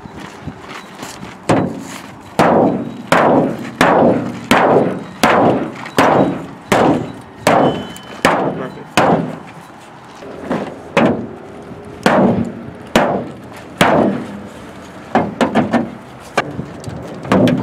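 Repeated blows of a firefighter's axe, its pike end driven into the sheet-metal hood of a Toyota sedan to crease the hood corner and fold it up for battery access. Some twenty sharp strikes, a little under one a second, with a short pause about ten seconds in.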